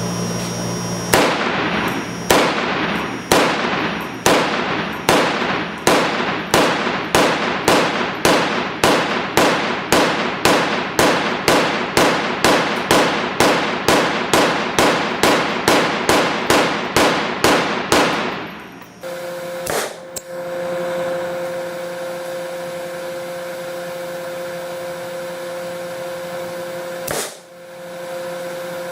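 A 7.62x39 AR-15-pattern rifle fired semi-automatically in a steady string of about thirty shots, roughly two a second. The firing stops about 18 seconds in, and a steady hum with a held tone follows.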